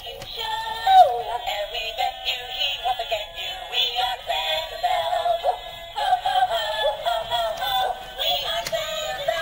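A Dan Dee Side Stepper elf dog plush toy playing its song, sung melody with backing music, through its small built-in speaker while it dances. The sound is thin and tinny, with no bass.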